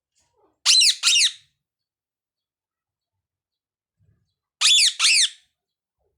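A parrot gives two loud, high two-note calls, each note falling in pitch, the second pair about four seconds after the first.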